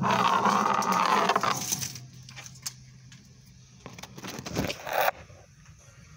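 Microphone handling noise from the camera being moved with its lens covered: rubbing and scraping, loudest in the first two seconds, then quieter scattered clicks and two sharp knocks a little after four seconds in.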